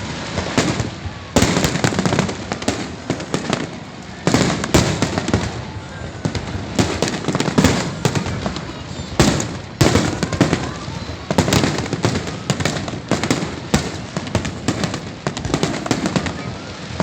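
Fireworks display: a rapid, irregular string of loud bangs and crackles, some in quick clusters, over a continuous rumble of many shells bursting at once.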